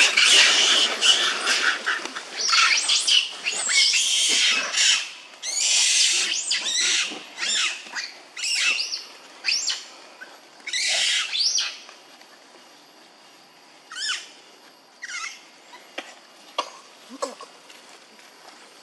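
Macaques screaming: a run of loud, shrill calls, one after another, that dies away after about twelve seconds, leaving only a few faint short sounds.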